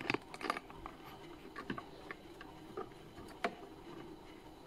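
Several short, light clicks and taps, irregularly spaced and loudest near the start, over a faint steady hum.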